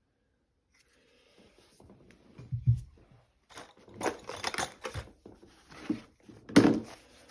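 Hand tools and a small case being handled and put down, with irregular rattles, clicks and knocks; a sharp knock near the end is the loudest.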